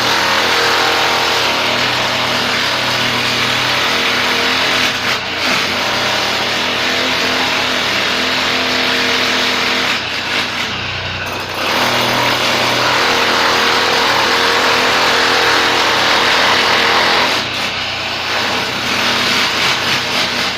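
An engine running steadily and loudly, with a constant hum under a broad noise, easing briefly about five, ten and seventeen seconds in.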